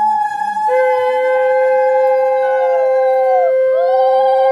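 Conch shells (shankha) blown in long, held, overlapping notes, a second one joining about a second in; some of the notes bend in pitch as they begin and fade.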